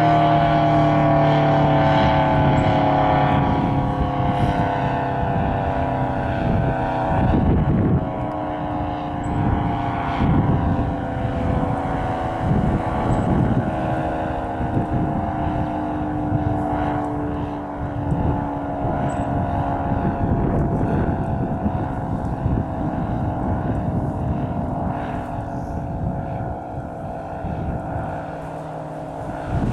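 ACA P-50 electromechanical tornado siren winding down at the end of its attack-signal test, its pitch falling slowly and steadily without rising again. Gusts of wind buffet the microphone from a few seconds in.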